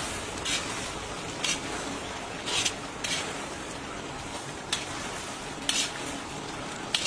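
Chicken karahi sizzling in a large steel karahi wok as a metal spatula is stirred through it, scraping against the pan in short strokes roughly once a second.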